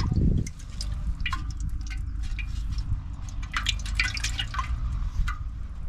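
Water dripping and splashing in a quick scatter of small drops, thickest a little past the middle, over a steady low rumble.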